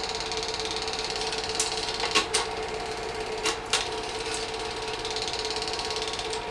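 Film projector running with a steady mechanical whir and fast fluttering clatter. A handful of sharp clicks come in the middle.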